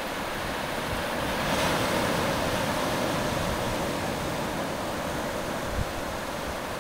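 Steady rushing noise of shallow water moving over sand, swelling for a couple of seconds about a second and a half in, with a few soft low thumps.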